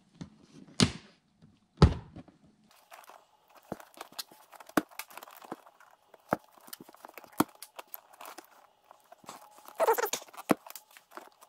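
Hand wire strippers snapping shut twice, sharply, about one and two seconds in. Then come many small clicks and rustles as wire ends are stripped and handled, and a louder scraping rustle near the end.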